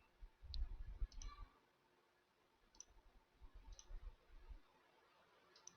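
Faint computer mouse clicks, about half a dozen spread irregularly over several seconds, with some low, soft knocking in between.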